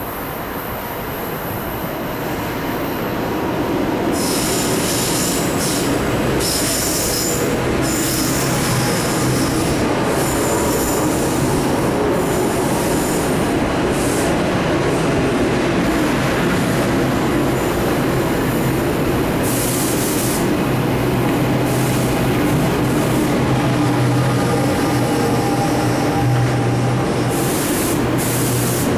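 New Jersey Transit electric multiple-unit commuter train coming in and running past along the platform, growing louder over the first few seconds into a steady rumble of wheels on rail. Stretches of high-pitched wheel squeal come and go over it.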